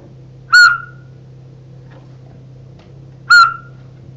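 Two short, loud blasts on a whistle, about three seconds apart.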